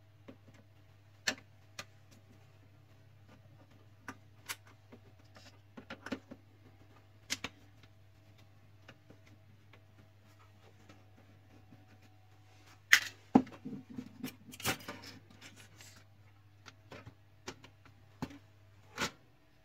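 Sharp, scattered clicks and knocks of plastic printer parts and tools being handled as a printer's paper-pickup section is taken apart, with a denser burst of clatter about thirteen seconds in. A steady low hum runs underneath.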